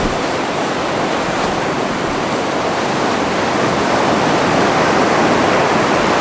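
Ocean surf washing onto a sandy beach: a steady rush of breaking water that swells slightly in the second half.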